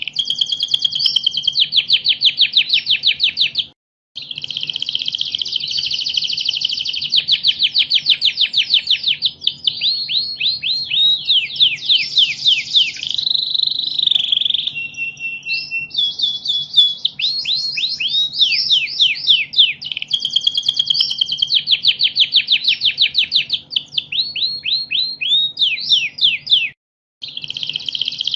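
Domestic canary singing a long, loud song of rapid trills: quick falling notes repeated many times a second, changing from one trill to the next. The song breaks off into silence twice, once near the start and once near the end. A faint steady hum runs underneath.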